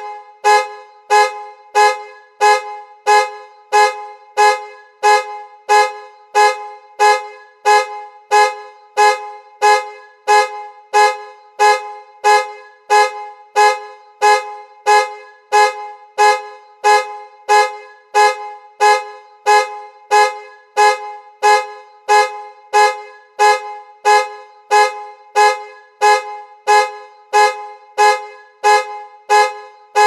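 Car alarm going off: the car's horn honks in short, evenly spaced blasts, a little under two a second, keeping the same pitch and pace throughout.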